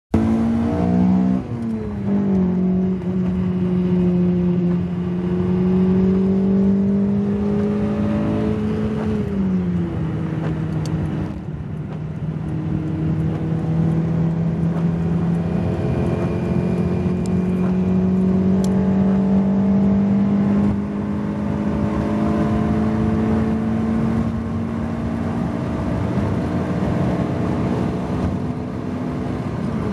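Acura Integra's B17A 1.7-litre DOHC VTEC four-cylinder engine heard from inside the cabin, held at high revs at highway speed. Its drone climbs slowly under throttle and dips in pitch a few times, about a second in, around ten seconds in and near the end. Steady tyre and spray noise from the wet road runs beneath it.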